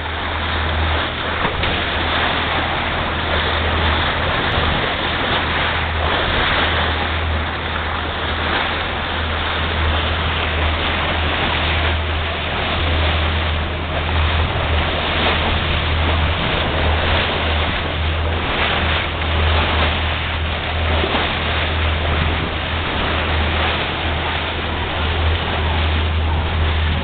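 Sea water rushing and splashing along the hull of a motorboat under way, as its bow wave and wake churn into foam, over the steady drone of the boat's motor.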